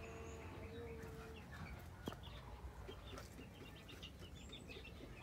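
Faint chickens clucking and chirping in the background, with short high calls scattered throughout. A faint steady tone stops about a second and a half in, and there is a soft click about two seconds in.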